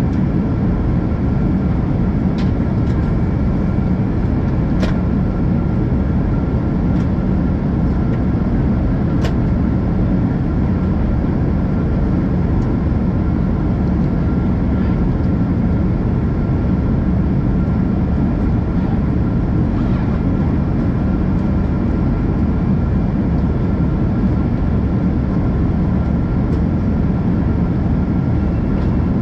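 Steady cabin drone of a Boeing 777-200ER in flight, heard from a window seat over the wing: engine and airflow noise from its Rolls-Royce Trent 892 turbofans, with a faint steady whine above the rumble. A few faint clicks from the cabin sound over it.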